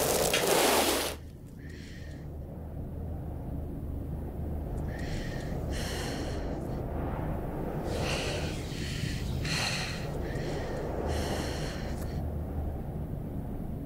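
A woman's ragged breathing: a loud gasp in the first second, then about six short, shaky breaths spread through the rest, over a steady low drone.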